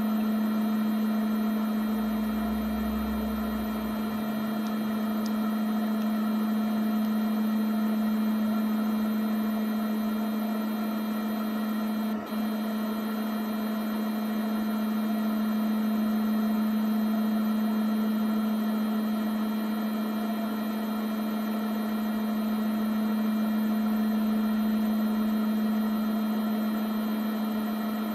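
Steady low droning hum with overtones, swelling and fading slowly, with a brief dropout about twelve seconds in.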